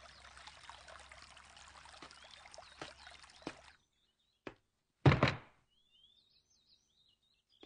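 A faint steady hiss with a few light ticks stops suddenly after about three and a half seconds. About five seconds in there is a single dull thump, followed by faint, quick, high bird chirps.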